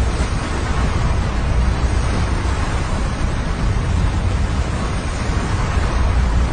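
Steady rushing noise of a flowing river of slushy snow, with a deep rumble underneath.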